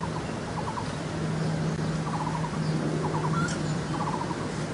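Small birds chirping in short, rapid trills several times over a steady low hum and a background hiss.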